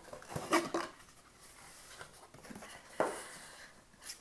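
Hands handling the cardboard packaging inside a camera box: rustling and scraping of cardboard and paper. The loudest scuffs come about half a second in, and a sharp knock or scrape follows about three seconds in.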